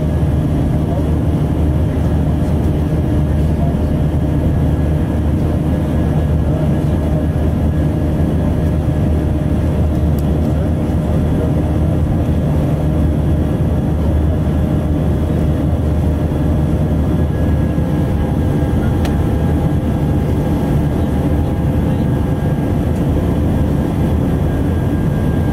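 Steady cabin noise of an Airbus A319 climbing, heard from a seat over the wing: a low, even rumble of the jet engines and rushing air, with a few faint steady tones above it.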